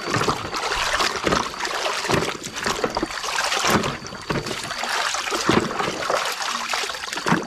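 Muddy water sloshing and splashing in a basin as a plastic toy concrete mixer truck is swished back and forth through it by hand, in irregular surges.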